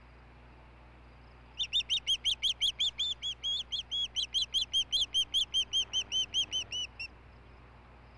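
Osprey calling: a rapid series of about twenty-five high whistled chirps, about five a second, lasting some five seconds and starting about a second and a half in.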